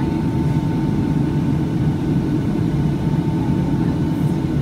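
Steady cabin noise inside a Boeing 757-200 airliner: a constant low rumble of engines and airflow with a faint steady whine above it.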